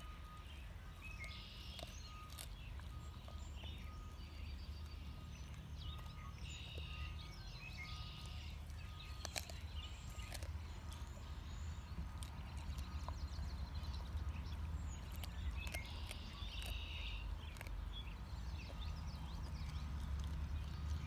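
Quiet outdoor background: a steady low rumble, with birds chirping now and then and a few scattered sharp clicks.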